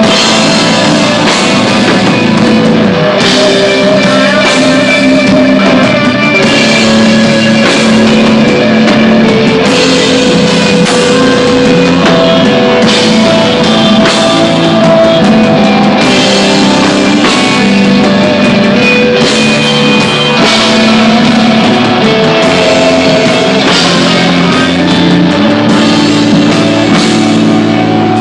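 Desert rock band playing live and loud: distorted electric guitar and bass holding long notes over a drum kit, with cymbal crashes every few seconds.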